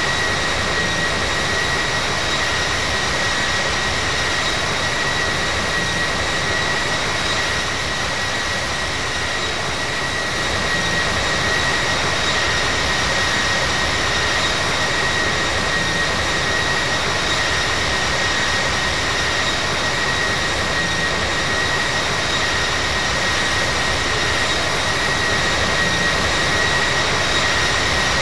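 Jet engine noise from a Boeing 737-700's CFM56-7B turbofans: a steady rushing roar with a steady high whine over it, holding level with no spool-up or spool-down.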